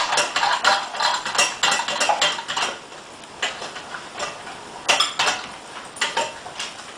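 Dry dog kibble and food bowls clinking and rattling in quick, irregular clusters as dogs eat.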